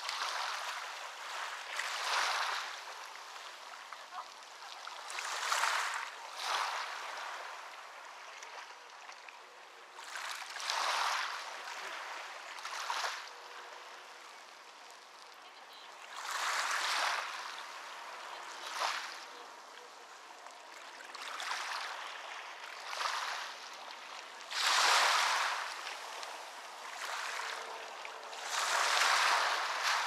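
Ocean waves washing onto a beach, coming in as a dozen or so irregular surges of hiss every two to four seconds, with a softer wash between them.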